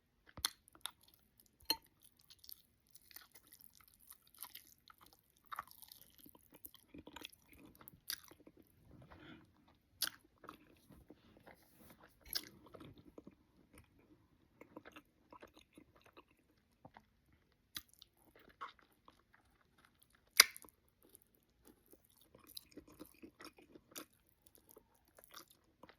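Close-up mouth sounds of a person eating oxtails with cabbage and rice: quiet chewing with scattered wet smacks and lip clicks, one sharper smack about twenty seconds in.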